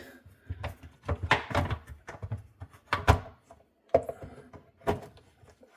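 Plastic dishwasher parts knocking and clattering as a piece is worked underneath and fitted into place: a string of separate thunks, the sharpest about three seconds in.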